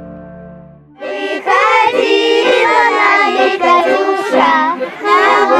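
Children singing a song, starting loudly about a second in after soft instrumental music fades out.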